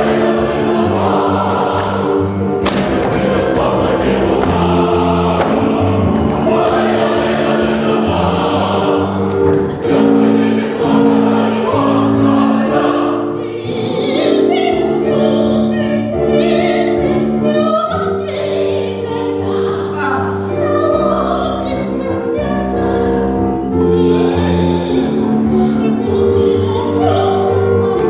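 A choir singing in held chords that change every second or two, with no break.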